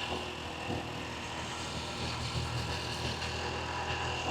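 Small motorbike, a Honda Blade step-through, running at a steady pace on the road, with wind and road noise.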